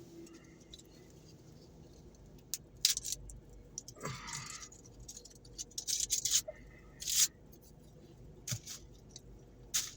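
Fortune cookie being unwrapped and broken open: scattered crinkles, cracks and small clicks, with one short rustling burst about four seconds in.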